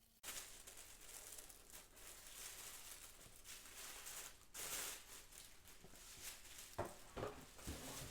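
Paper and packaging rustling as a gift box is opened and its contents are lifted out, with a few light knocks of handling near the end.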